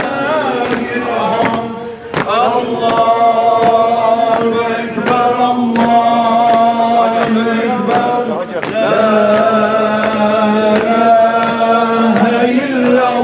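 Group of men's voices chanting in unison, in long held notes with wavering slides between phrases.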